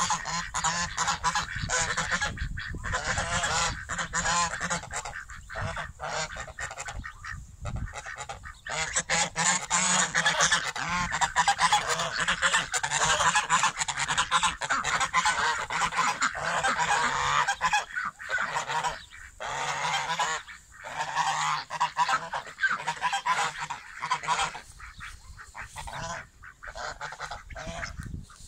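A flock of domestic geese honking over one another almost without a break, with short pauses now and then. The honking is loudest in the middle stretch and dies down somewhat near the end.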